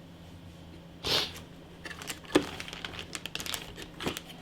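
Hands handling computer parts and their packaging: a brief rustle, then a sharp click and a quick flurry of small plastic ticks and taps, with another knock near the end.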